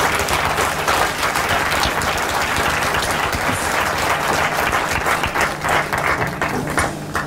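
Audience applauding, a dense patter of many hands clapping that thins out into scattered claps near the end.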